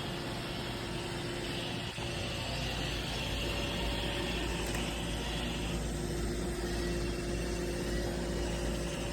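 Roomba robot vacuum running: a steady whir with a faint level hum.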